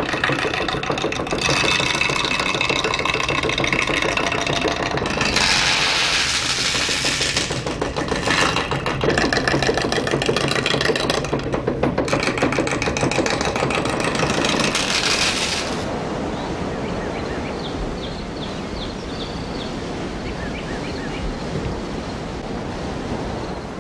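Blanchard's copying lathe running, its cutting wheel chewing into a wooden musket-stock blank in four loud stretches of a few seconds each over the machine's rumble. About two-thirds of the way in this gives way to steady rushing water.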